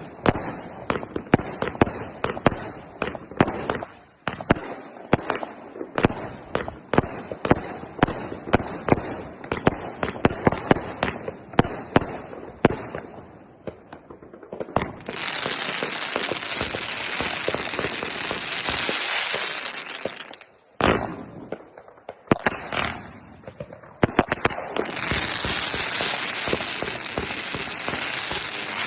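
A 288-shot firework cake firing: rapid shots several a second, one after another for about the first half. Then it turns to a loud, dense unbroken hiss that breaks off for a few seconds with a few single shots and starts again near the end.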